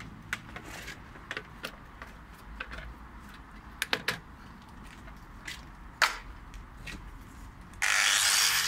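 Scattered clicks and knocks of handling an extension cable reel and tools, then near the end an electric angle grinder with a sanding disc is switched on and runs loudly and steadily.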